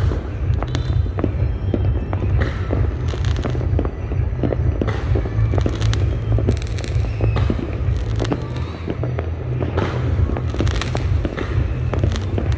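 Many fireworks going off at once: a continuous deep rumble of distant booms, overlaid with frequent sharp bangs and crackles.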